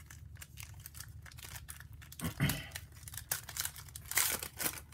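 Foil trading-card pack wrapper being torn open and crinkled by hands, in short irregular rustles, with a louder burst a little past two seconds in and another just after four seconds.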